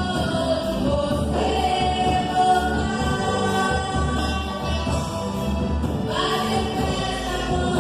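A choir singing a gospel hymn with instrumental accompaniment and a steady bass.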